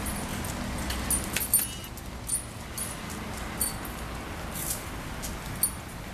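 Metal tags or rings on a dog's collar jingling in short, irregular clinks, about seven over a few seconds, as the dog moves.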